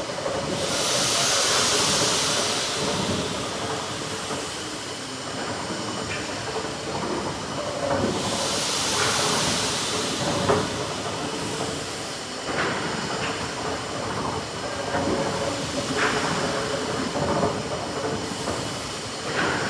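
Kempton's giant triple-expansion steam pumping engine running slowly: steam hissing in two strong surges about seven seconds apart, over a steady mechanical clatter with a few sharp clanks.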